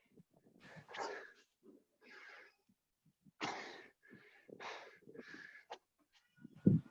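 Men breathing hard from doing burpees: a series of short, breathy exhales, roughly one every half second to a second.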